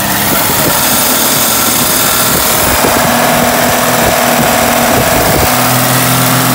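Toyota Land Cruiser F-series carbureted inline-six engine running steadily at raised speed, held at about 2,400 rpm, the cruising speed at which its oil pressure should read 50 PSI.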